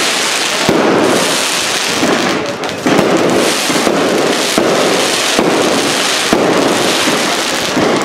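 Aerial fireworks display: shells bursting about once a second over a continuous crackle of glittering stars.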